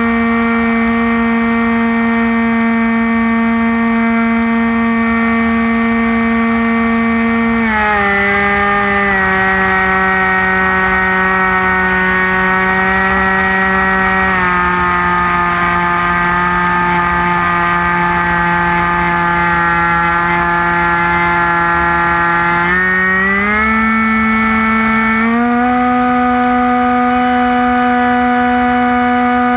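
Electric pusher motor and propeller of a HobbyKing Bixler model glider, heard from on board in flight: a steady drone whose pitch drops as the throttle is eased back about 8 and again about 15 seconds in, then rises again about 23 and 25 seconds in.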